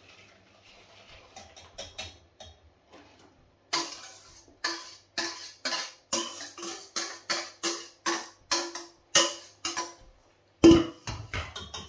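A utensil scraping and knocking inside a stainless steel mixing bowl as pastry cream mix is emptied into a saucepan: short ringing metal strokes at about three a second, the loudest near the end.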